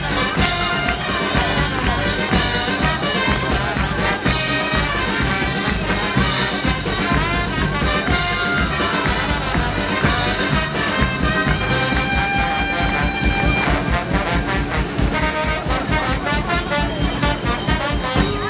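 Live cumbia band with a brass section, trumpets, trombone and saxophone playing over drums and bass with a steady dance beat. A horn holds a long high note about two-thirds of the way through.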